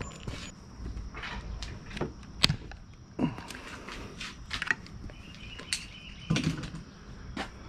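Scattered light clicks and rustles of wiring being handled: the bullet connectors and plastic sleeves on an outboard's stator leads being pulled apart and pushed together.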